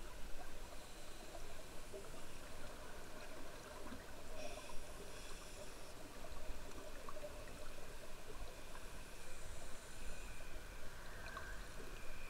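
Underwater sound from a camera in a waterproof housing: a steady low rumble and hiss, with scuba divers' exhaled bubbles gurgling up from their regulators in two bursts, about four and nine seconds in.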